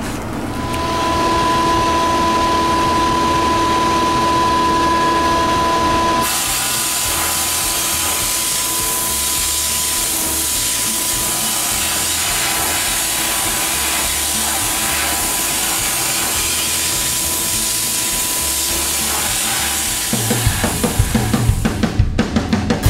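Sandblasting in a blast cabinet: the blast gun sends out a steady, loud hiss of air and abrasive that starts suddenly about six seconds in. Before it there is a steady humming whine, and music comes in near the end.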